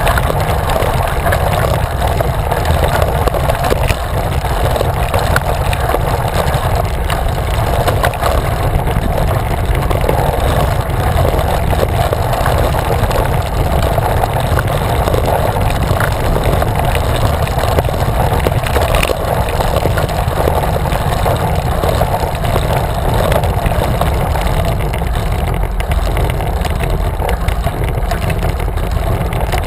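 Steady wind rumble buffeting a bike-mounted camera's microphone while a road bicycle rolls along, with a constant rush of tyre noise from the tarmac under it.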